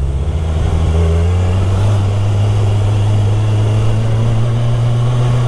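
Kawasaki Ninja 1000's inline-four engine running steadily while riding, its pitch rising slightly about a second in.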